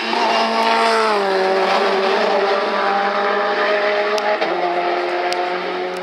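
A hillclimb race car's engine running hard as the car goes by. Its pitch slides down about a second in, holds, then steps down again about four and a half seconds in.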